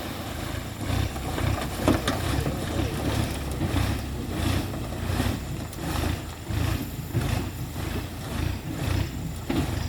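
Tractor engine running with an even rhythmic beat, about two a second.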